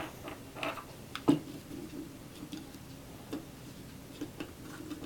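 Scattered light clicks and taps of plastic toy tools and pieces being handled, with one sharper knock about a second in.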